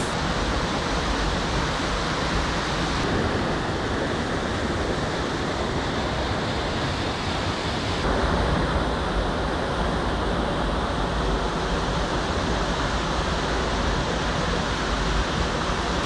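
Steady rush of water from a mountain stream spilling over a small waterfall, shifting slightly in tone about three and eight seconds in.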